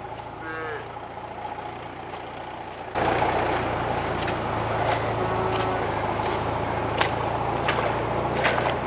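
A motor vehicle engine running steadily with a low hum, and a short bawl from one of the cattle about half a second in. About three seconds in, the sound turns abruptly louder and rougher, with scattered clicks and knocks after it.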